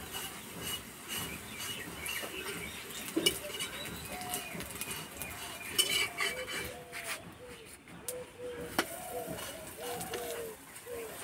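Metal spatula knocking and scraping on a metal griddle as a paratha shallow-fries in oil. A few sharp knocks stand out. From about a third of the way in, an animal calls over and over in short rising-and-falling notes.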